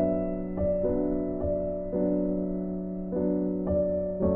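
Gentle background music on piano: a slow melody of single held notes, a new note every half second or so.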